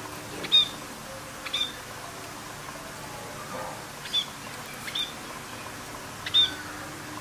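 Budgerigars giving short, sharp chirps, about five of them spread unevenly over several seconds, over a steady hiss.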